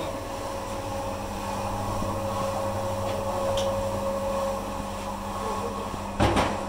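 Sheet-steel mixer machine running with a steady mechanical hum. Two loud knocks come in quick succession near the end.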